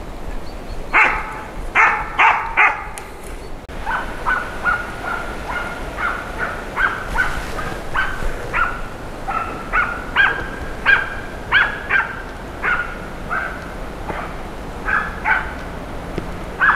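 Hunting dog barking in repeated short barks during a driven hunt: the chase bay of a dog on the track of game. About a second in come four louder barks close together, then a regular string of barks, roughly one to two a second, over a steady hiss.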